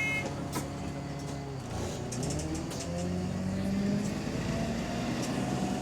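Diesel bus engine pulling away from a stop, its note and a whine above it rising as it speeds up. A few light clicks sound early on.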